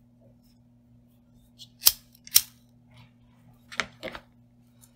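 Sharp little clicks and taps from hands handling craft materials on a cutting mat: two loud clicks about half a second apart around two seconds in, another close pair near four seconds, and fainter ticks between them.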